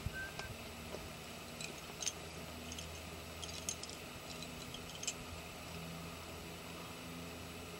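Faint, scattered light clicks and metallic clinks from climbing gear being handled, such as quickdraws and carabiners on a harness and the rope, over a steady low background hum. A brief thin high peep sounds near the start.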